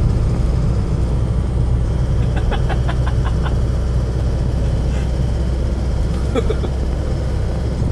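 Steady low rumble of road and wind noise from a vehicle travelling at expressway speed in strong wind.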